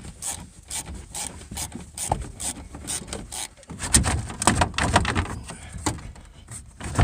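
Irregular clicks, knocks and scraping from hands and a screwdriver working on the van's interior door panel, busiest and loudest from about four seconds in.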